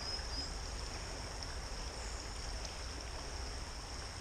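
Quiet riverside ambience: a steady outdoor background with a constant high-pitched hiss and a low rumble underneath, and no distinct events.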